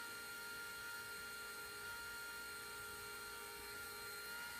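Faint, steady electric hum of a Bohning cresting machine's motor spinning a wooden arrow shaft, holding an even speed.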